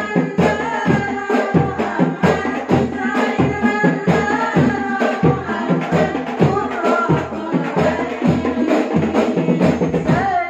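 Women singing an Arabic devotional song to the Prophet into microphones, over a group of rebana frame drums beating a steady rhythm.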